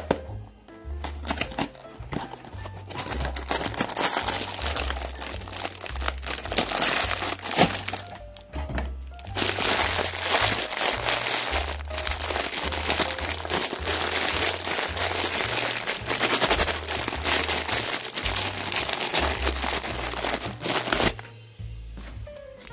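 Clear plastic bag of individually wrapped hard candies crinkling loudly as hands squeeze and handle it, with a short pause about nine seconds in and stopping near the end. Background music with a steady bass beat plays underneath.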